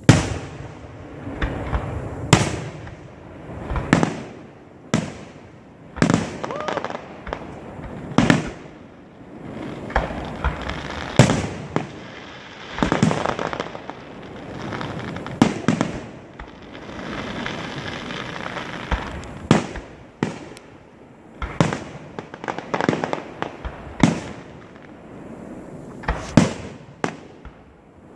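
Aerial firework shells bursting, about twenty sharp bangs at one to two second intervals, with stretches of crackling between some of the reports.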